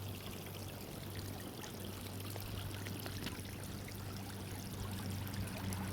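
Water running steadily onto a water slide and its mat, a continuous pouring, trickling stream, with a steady low hum underneath.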